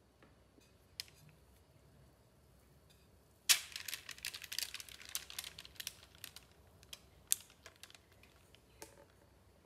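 Parchment paper lining a baking dish crinkling and crackling, with light taps of the glass bowl, as thick cake batter is poured in. A sharp click starts a run of quick crackles lasting about four seconds, and a few scattered clicks follow near the end.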